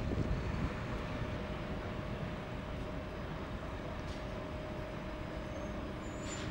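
Alstom Citadis X05 tram rolling slowly past at close range, a steady electric hum over the low rumble of its wheels on the rails.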